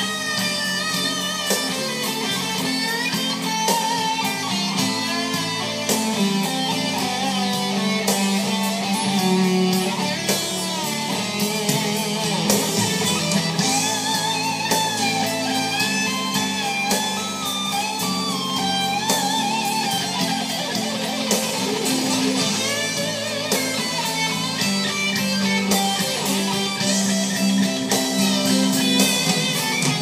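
Live rock band recording with an electric guitar lead, its notes bending and wavering over a steady low backing, played back through Klipsch home theater speakers.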